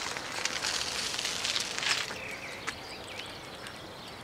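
A bicycle passing close by, a high hiss with rapid fine clicks that fades after about two seconds. Then a few short bird chirps.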